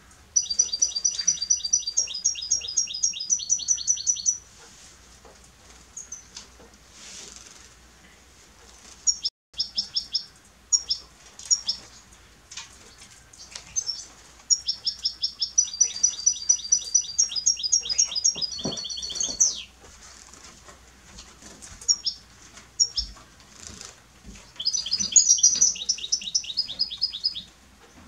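European goldfinch singing: bouts of fast, evenly repeated high notes that switch to a new note pattern every second or so, four bouts with short pauses between.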